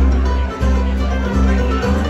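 A live string band plays an instrumental passage. Acoustic guitar is to the fore, over upright bass notes that change roughly every half second to three quarters of a second.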